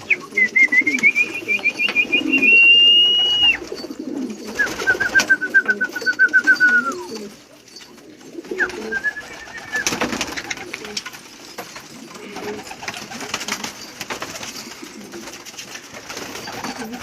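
Domestic pigeons cooing. Three high trilled whistles cut through early on: a long one at the start, a lower one that slides down at its end, and a short one about nine seconds in.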